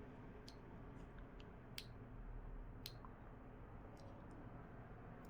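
Faint, scattered small clicks, about four spread across a low steady hum, from tools and small parts tapping on an open iPhone 11 while a stubborn connector is being pressed into place.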